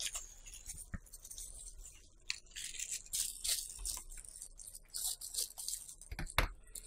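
Plastic packaging rustling and crinkling in short, irregular bursts as a plastic mailer bag is handled, with a couple of light knocks near the end.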